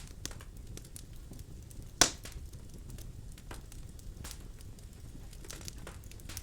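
Birch logs burning in a fireplace: a low steady rumble of flames with scattered crackles and one loud sharp pop about two seconds in.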